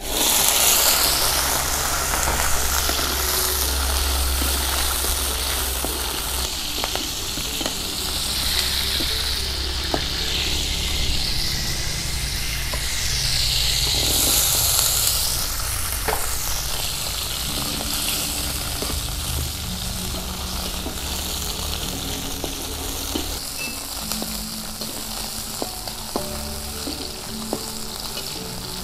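Hot oil in a wok bursts into loud, steady sizzling as sliced petai beans are tipped in and fried. Scattered clinks of a metal spatula come through as they are stirred.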